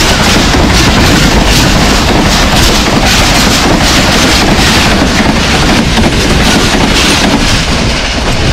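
Pak Business Express passenger train passing close by at about 104 km/h: a loud, steady rush of coaches with the clatter of wheels over the rail joints.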